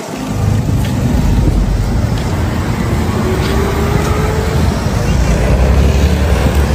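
Road traffic, with a Toyota passenger van's engine driving past close by over a steady low rumble, its engine note slowly rising in pitch partway through.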